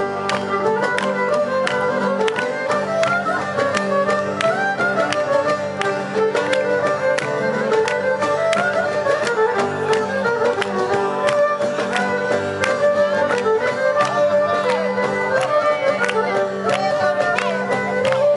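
Cypriot folk dance music led by a violin playing the melody, with steady hand-clapping on the beat.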